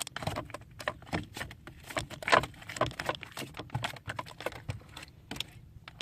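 A caught fish flopping about in the bottom of the boat: a rapid, irregular run of knocks and slaps, loudest about two seconds in and thinning out near the end.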